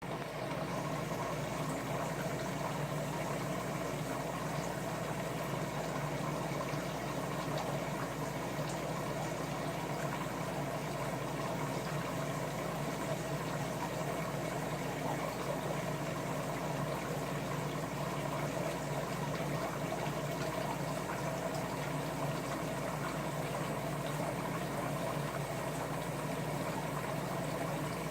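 Aquarium water bubbling steadily, with a low pump hum underneath.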